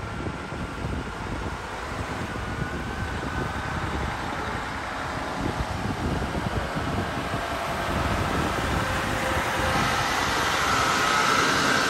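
Mercedes-Benz articulated truck (tractor unit with curtainside trailer) driving at low speed, its engine and tyres growing steadily louder as it approaches.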